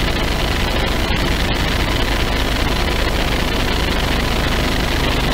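Roadside traffic noise from a jam of cars and vans: engines running under a steady, even noise with strong low end.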